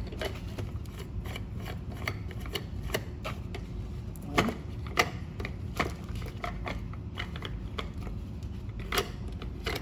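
Irregular clicks and rattles of a table lamp's locking ring and shade being worked loose by hand, with a couple of sharper knocks about four and a half and five seconds in.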